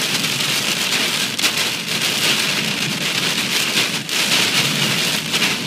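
Rain and hail pelting the outside of a moving storm-chase vehicle, heard from inside the cab as a dense, steady patter of hits, driving through a supercell's hail core.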